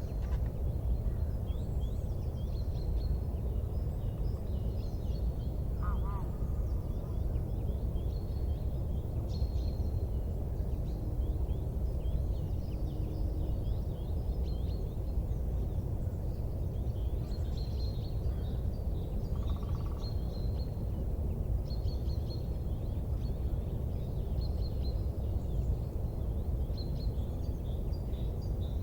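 Outdoor ambience: a steady low rumble with many short, high bird chirps throughout.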